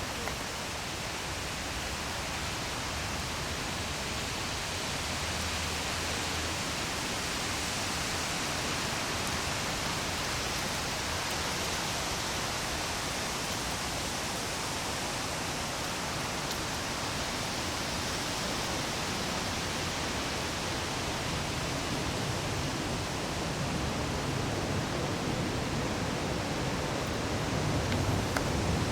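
Strong wind rushing and buffeting the microphone at an eagle nest, a steady noise that grows a little louder near the end.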